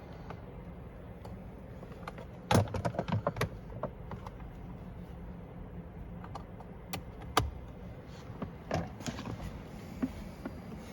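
Small plastic clicks and rattles of the speaker pod's wiring connector and dash parts being handled and plugged back in: a quick run of clicks about two and a half seconds in, then single clicks every second or two.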